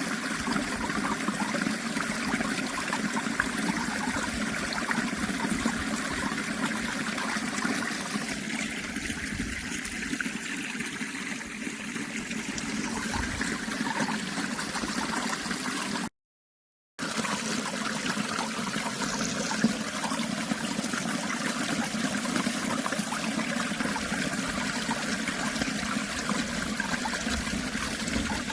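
Running water, a steady even rush, cutting out to silence for just under a second about 16 seconds in.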